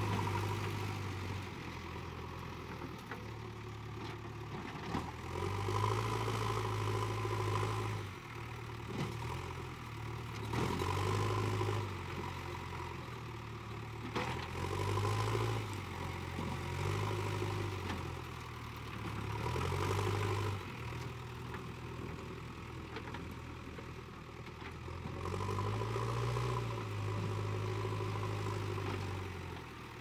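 JCB 3DX backhoe loader's diesel engine working, its revs swelling and dropping back every few seconds as the front loader bucket digs and lifts mud.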